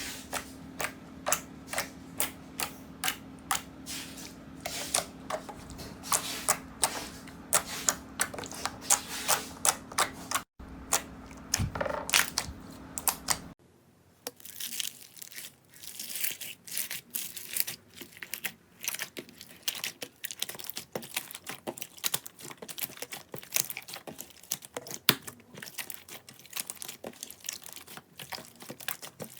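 Slime being squeezed and poked by hand, giving a dense run of irregular sticky clicks and crackling pops. A low steady hum underneath stops abruptly about halfway through.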